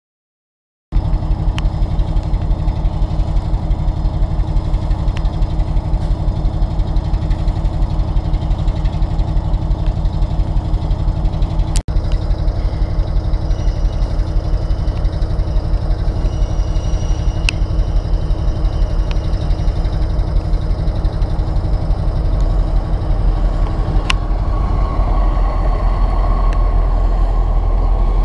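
Heavy diesel freight locomotive engine running with a steady low pulse beside a train of freight wagons. Near the end the low rumble grows and a steady whine rises as a passenger train runs in alongside the platform.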